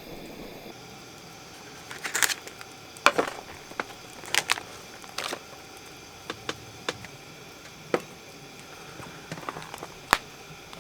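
Wood campfire crackling, with irregular sharp snaps and pops, the loudest about three seconds in and near the end.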